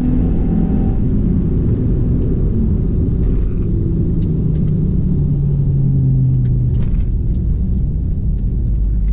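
Dodge Charger's 3.6-litre Pentastar V6 running at speed under a heavy road rumble, its engine note dropping gradually as the car slows after a drag strip pass.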